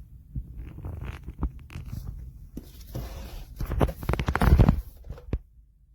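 Handling noises: irregular rustling, scraping rasps and sharp clicks as something is handled and pulled at, loudest about four to five seconds in.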